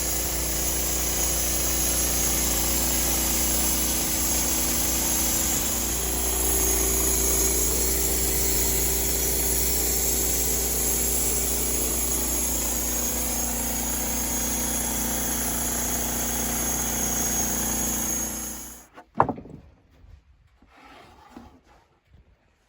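Homemade engine-driven sawmill with a power feed sawing through a log: a steady running engine and blade cutting wood, which cuts off suddenly about nineteen seconds in, followed by a single sharp knock.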